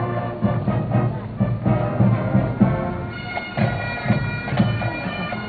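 Marching band playing: wind instruments hold sustained notes over drums beating a steady march, about two strokes a second.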